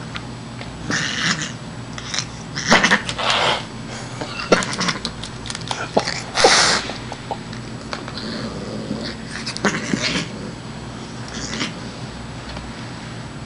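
Siamese cat hissing in a string of short breathy bursts, some louder and longer than others, with a few small clicks between them. The hissing is playful, made while playing with a toy, not out of anger.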